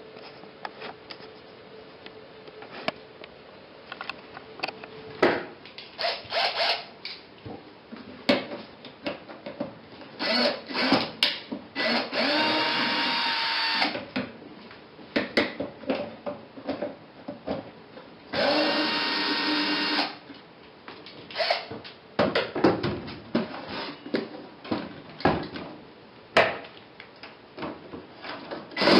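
Black & Decker cordless screwdriver running in short bursts, two of them lasting a couple of seconds each, as it backs screws out of a CRT TV's plastic rear casing. Many clicks and knocks in between.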